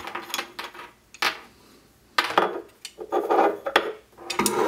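A dome security camera being taken apart by hand: the loosened top of the housing lifted off its base, with a string of sharp clicks and knocks and some scraping.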